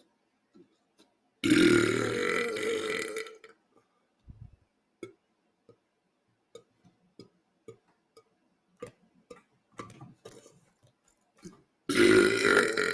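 A man belching loudly twice: a long belch about a second and a half in, lasting nearly two seconds, and another starting near the end. Faint clicks and mouth noises come in between.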